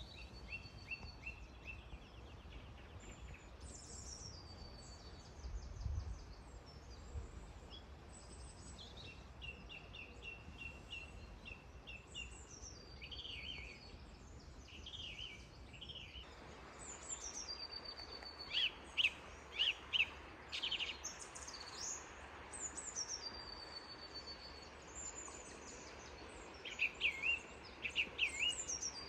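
Songbirds singing, repeated short chirps, trills and brief held whistles, over a steady background hiss that grows louder about halfway through.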